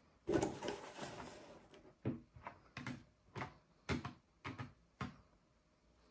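Hard plastic graded-card slabs being handled: a brief scraping rustle, then about eight sharp plastic clacks as slabs are picked up and set down on the stacks.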